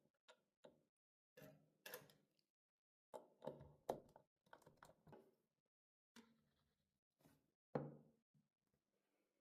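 Irregular light knocks and clicks of small hard plastic parts being handled, with the sharpest knocks about four seconds in and just before eight seconds in.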